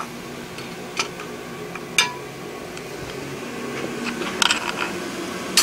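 Light metallic clinks of tongs and a steel bar against the anvil: a sharp one about a second in, another about two seconds in that rings briefly, and a cluster of small clinks near the end, over a steady hum.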